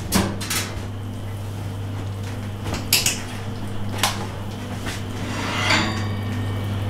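A gas grill's lid being opened with clicks and knocks, then a metal roasting pan rattling and scraping on the grill grate as it is taken out, about five and a half seconds in. A steady low hum runs underneath.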